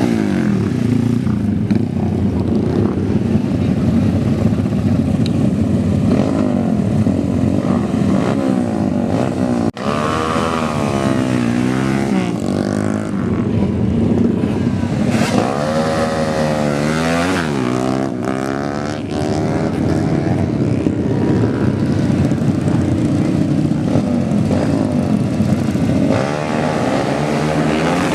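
Modified motorcycle engines revving hard, the pitch sweeping up and down again and again in long revs, with a brief sudden drop about ten seconds in.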